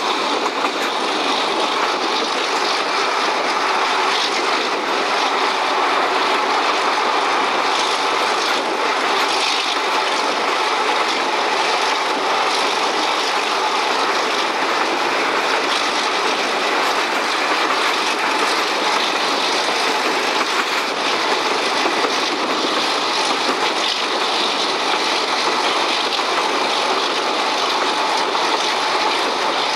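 Alco RS-8 diesel locomotive of OSE class A.201 running under power, blowing dark exhaust, heard from a carriage window together with the steady rolling noise of the train's wheels on the rails.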